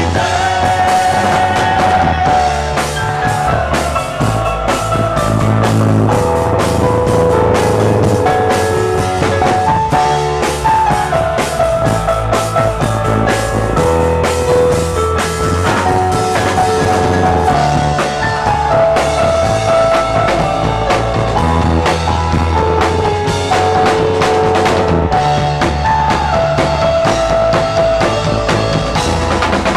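Rock band playing, a drum kit keeping a steady beat under bass and a held melody line.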